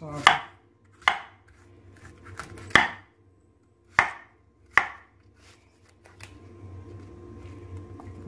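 Kitchen knife cutting an apple into slices on a wooden chopping board, the blade knocking sharply on the board five times at uneven intervals.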